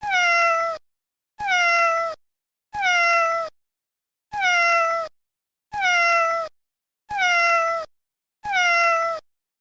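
Domestic cat meowing, the same single meow repeated seven times with short silent gaps, each call sliding slightly down in pitch.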